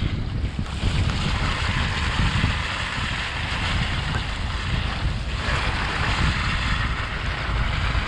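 Truck driving slowly on a snowy, slushy road: a steady low rumble of engine and tyres with wind buffeting the microphone.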